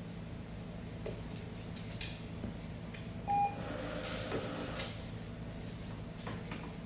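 One short beep from a Treat & Train remote-controlled treat dispenser, the tone that tells the dog a food reward is coming, followed by about a second and a half of rattling. A few faint taps come before it.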